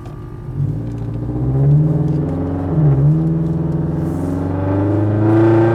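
Turbocharged Scion FR-S's 2.0-litre flat-four engine accelerating, its pitch rising, with a brief dip in revs about three seconds in before it climbs again.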